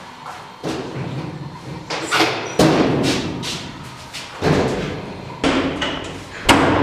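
A run of about six loud, heavy thumps at uneven intervals, each ringing out briefly after the strike.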